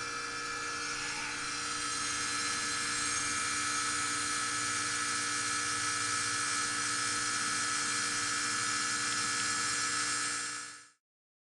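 Heat pump outdoor unit running in heating mode: a steady mechanical hum with a high whine over it, cutting off abruptly near the end.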